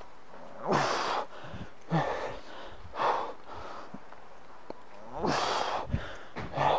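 A man breathing hard in sharp exhales and gasps, about five breaths, under the effort of single-arm clubbell clean-to-pullover reps with a 25-pound club.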